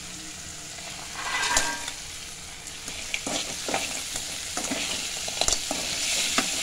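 Masala sizzling in an aluminium kadai as fried idli pieces go in, with a louder burst of sizzling about a second and a half in, then stirring with the perforated metal ladle scraping and clinking against the pan.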